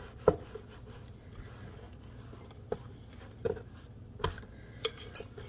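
Wooden rolling pin working a slab of seitan dough on a wooden board: one sharp knock just after the start, then a few soft taps and handling sounds.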